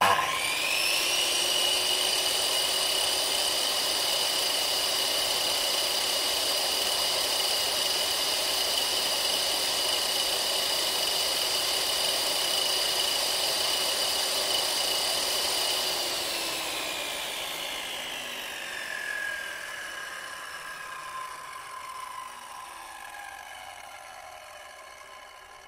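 Small electric chainsaw motor switched on, its whine rising quickly to full speed and running steadily at a constant high pitch. About sixteen seconds in it is switched off, and the pitch falls gradually as the motor and chain coast down and fade.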